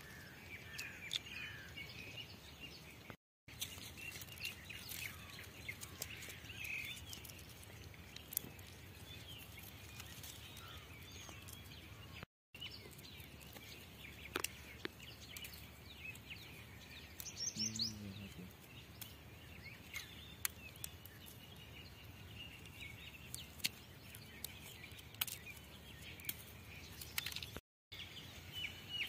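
Small birds chirping repeatedly over a faint, steady outdoor background, with scattered light clicks from Manila tamarind (camachile) pods being split open and handled by hand.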